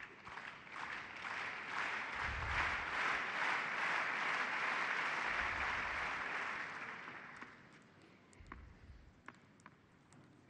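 Crowd applauding a won point: the clapping swells, holds and fades out over about seven seconds. Near the end there are a few sharp taps of a tennis ball being bounced on the court before a serve.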